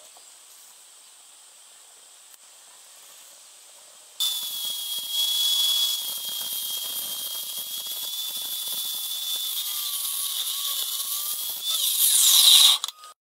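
Compound mitre saw cutting through aluminium angle: a loud hiss of cutting with a steady high whine from the blade. It starts suddenly about four seconds in, grows louder near the end and stops abruptly.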